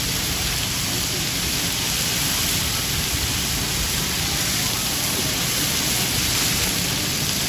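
Chicken thigh steaks sizzling on a flat-top teppanyaki griddle: a dense, even hiss with no breaks, heard played in reverse.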